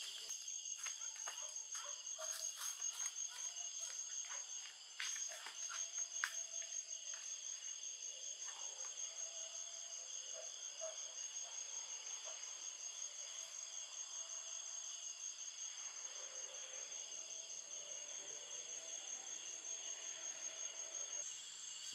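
Night insects trilling in chorus, one high, fast-pulsing trill steady above the rest. Light crackles of footsteps on dry leaf litter are heard in the first few seconds.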